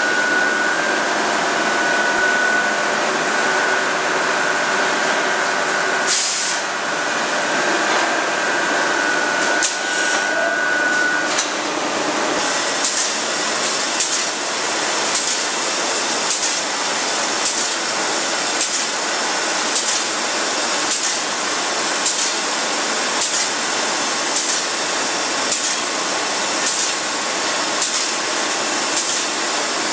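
Steel bar rolling mill running: a loud, steady machinery din as hot steel passes through guides and rolls. A high whine holds for the first ten seconds or so and then stops. After that, sharp ticks come roughly once a second.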